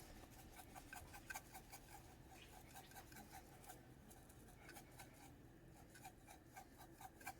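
Near silence with faint, quick light ticks throughout: freeze-dried chives being shaken out of their container.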